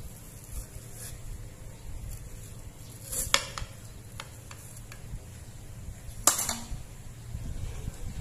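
A large kitchen knife cuts down through watermelon on a plate, and its blade knocks sharply against the plate twice, about three and six seconds in. A few lighter taps come between the two knocks.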